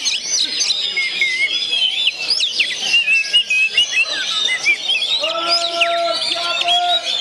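Oriental magpie-robin (kacer) singing a dense run of quick, varied chirps and whistled slurs. About five seconds in, a steady low tone with overtones joins for nearly two seconds.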